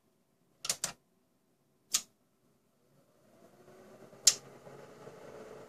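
Tektronix 2247A oscilloscope being switched on: a few sharp clicks from its push-button power switch, then a faint hum that rises in pitch and settles into a steady tone as the scope powers up.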